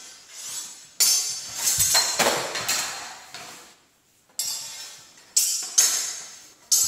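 Sword-and-buckler clashes: a run of sharp metallic strikes of blade on blade and blade on buckler, each ringing on and echoing in the hall, with a short lull near the middle.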